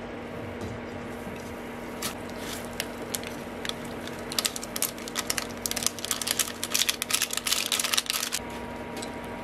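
Dried vegetable flakes shaken from a sachet onto a block of instant ramen noodles in a steel pot. Scattered small ticks give way, about four seconds in, to a dense crackly run of ticks and crinkles that stops about a second before the end.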